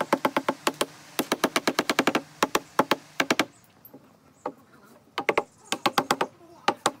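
Wooden mallet tapping wooden joints together in quick runs of sharp knocks, about seven or eight a second, with a pause of about two seconds in the middle.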